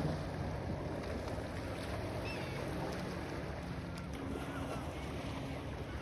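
Lake waves washing onto a pebble beach, with wind rumbling on the microphone. A few faint gull calls come in about two seconds in and again near the end.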